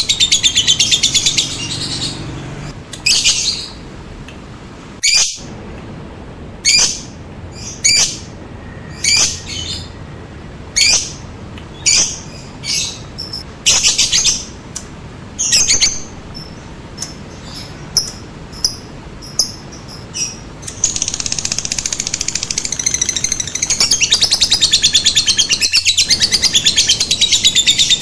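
Lovebird calling: a long, rapid, high chattering trill (the 'ngekek') at the start and again from about three quarters of the way through. Between them comes a run of separate sharp chirps, roughly one a second (the 'ngetik').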